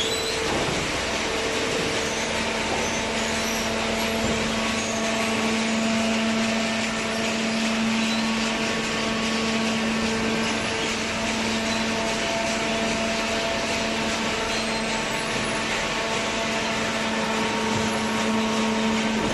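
Top-load hydraulic cardboard baler running, its hydraulic pump and motor giving a steady mechanical hum that settles in about a second and a half in.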